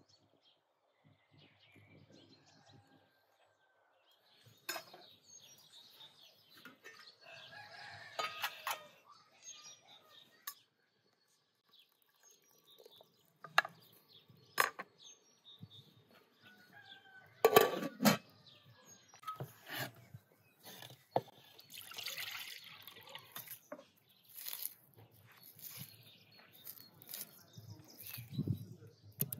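Scattered clinks and knocks of a metal skimmer against an aluminium cooking pot and wooden bowl as food is lifted out, loudest in a cluster a little past the middle.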